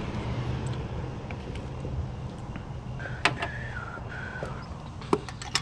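Hand-tool work on an engine's spark plug: a few sharp metallic clicks, and a high wavering squeak lasting over a second in the middle, over a steady low rumble.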